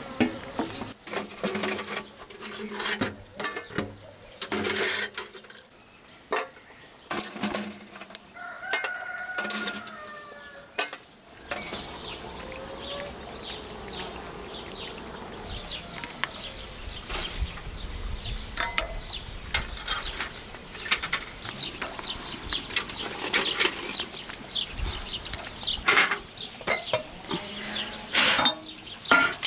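Chickens calling, with scattered knocks and clatters.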